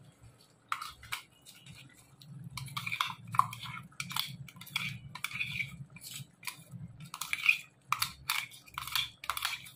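A spoon scraping and knocking thick wet masala paste out of a mixer-grinder jar into an aluminium cooking pot, in a run of irregular short scrapes and taps.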